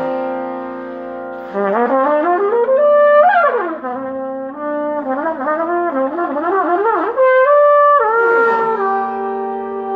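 Trumpet improvising: a held low note, then a quick rising run that peaks and slides back down about three seconds in, a flurry of short wavering notes, and a few held notes stepping upward near the end.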